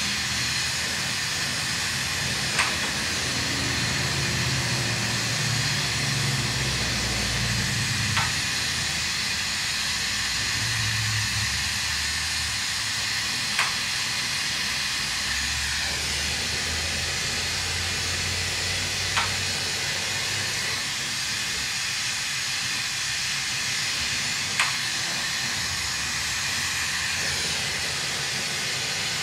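Lampworking bench torch hissing steadily while glass is worked in its flame. A short click sounds about every five and a half seconds.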